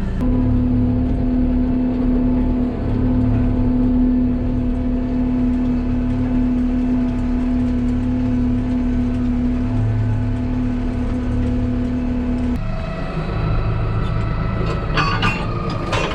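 Tractor engine running steadily, with a steady hum over it that cuts off suddenly about three-quarters of the way through while the engine keeps running. A few light clicks near the end.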